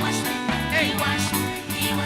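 Live gospel praise band playing between sung lines, with steady bass and drums.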